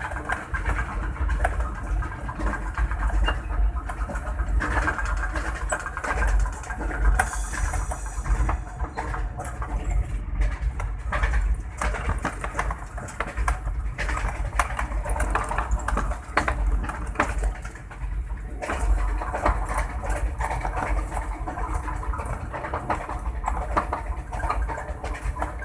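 Inside the cab of a ZCU-20 diesel-electric locomotive on the move: a steady deep engine rumble with constant rattling and clattering.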